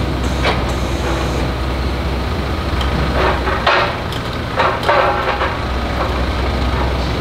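Doosan forklift engine running steadily with a low hum, with several short knocks between about three and five and a half seconds in.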